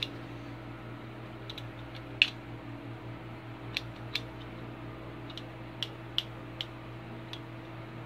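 Stainless steel multi-tool pliers being opened and handled, giving about ten sharp, irregular metal clicks as the handles and tools swing open and snap into place, the loudest a little after two seconds. A steady low hum runs underneath.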